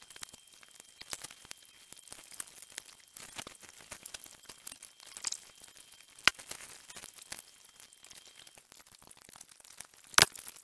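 Pencil scratching and shading on sketchbook paper: a dense run of small scratches and ticks, with a sharper click about midway and a louder one near the end.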